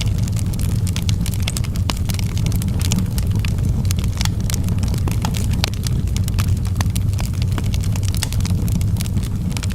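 Wood fire burning in a fireplace, with many quick, sharp crackles and pops over a steady low rumble.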